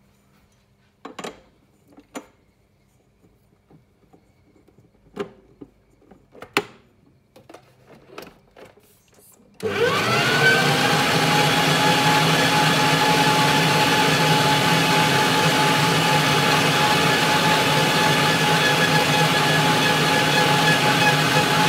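An electric stand mixer kneading dough. First come a few scattered clicks and knocks. About ten seconds in, the motor starts, whines up to speed, then runs loud and steady as the hook works the dough.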